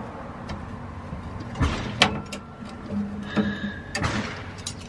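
Sharp metal knocks and clinks of a steel C-clamp and socket being unscrewed and pulled off a trailer leaf spring eye, with a few separate knocks and some brief ringing.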